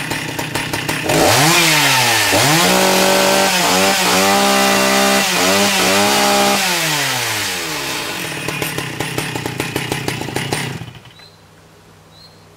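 McCulloch Titan 55 chainsaw's 55cc two-stroke engine being revved: the pitch climbs to a held high rev with a few short dips, falls back to idle, and the engine stops about eleven seconds in.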